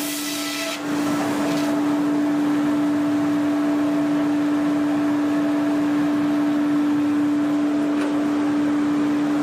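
Sawmill machine motor running steadily with a loud, even hum. A brief hiss at the very start cuts off under a second in.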